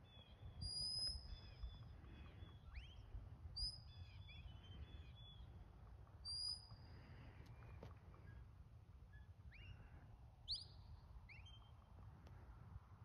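Faint sheepdog handler's whistle commands: a few held high whistles and several short falling whistles, over a low rumble of wind on the microphone.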